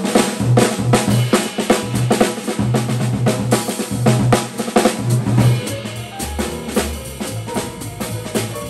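Jazz drum kit played with sticks close up, with quick cymbal and snare strikes, and upright bass notes stepping underneath.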